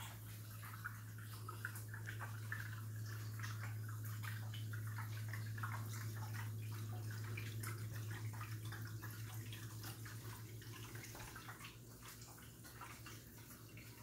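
Water running down the glass panel of a water-wall fountain and splashing into its pebble-filled basin: a steady trickling splatter over a steady low hum, louder in the middle and a little fainter near the end.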